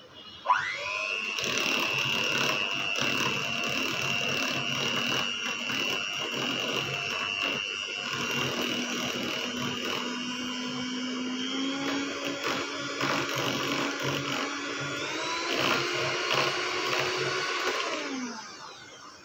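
Electric hand mixer running, its beaters whipping thick dulce de leche in a glass bowl. The motor whine rises as it starts about half a second in, steps up in pitch twice, then winds down and stops near the end.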